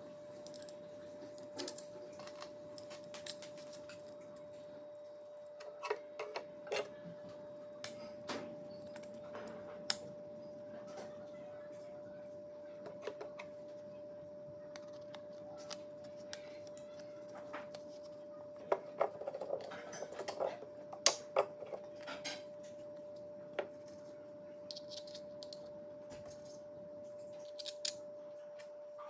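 Scattered light clicks and knocks of wooden blocks, fibreboard plates and steel pins being handled and fitted together by hand, with a busier run of clicks about two-thirds of the way in. A faint steady hum lies under it throughout.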